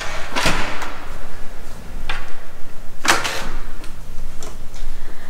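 Hotel room door with an electronic lock being opened and shut: a few knocks and thuds, the loudest about half a second and about three seconds in.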